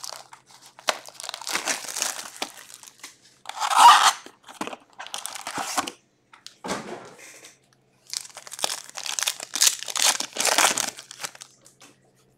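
Foil-wrapped Upper Deck Allure hockey card packs and their cardboard box rustling and crinkling as the packs are pulled out and a pack wrapper is torn open, in several bursts; the loudest comes about four seconds in.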